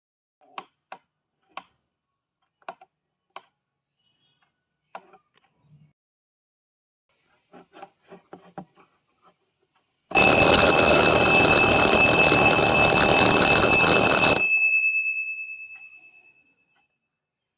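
A series of light clicks, then an alarm clock ringing loudly for about four seconds. It cuts off suddenly, and the ring fades away over the next two seconds.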